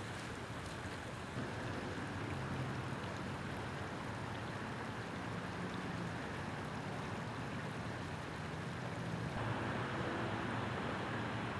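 Water from a broken water main rushing across a sidewalk and into the street, a steady rush with a low hum underneath. The sound shifts abruptly about a second in and again near the end.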